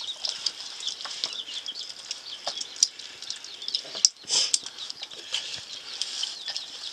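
Small birds chirping over and over, with a couple of sharp knocks about three and four seconds in.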